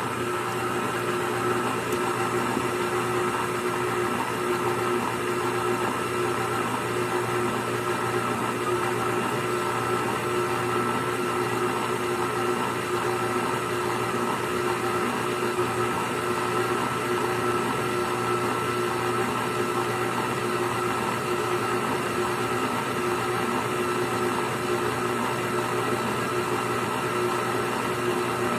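Electric mixer running steadily at constant speed, beating pound cake batter as eggs are blended in, with a steady motor hum.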